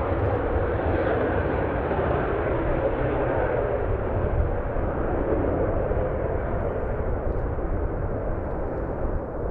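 Jet noise from a Northrop F-5's twin J85 turbojets: a steady roar with deep rumble that slowly fades toward the end as the jet moves away.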